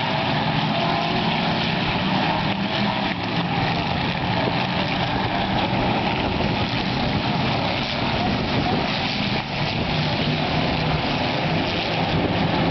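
Engines of a field of hit-to-pass race cars running laps around an oval track, blending into one steady drone.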